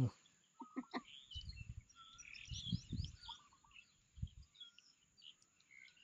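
Wild birds chirping faintly in many short calls, with a few soft low thuds.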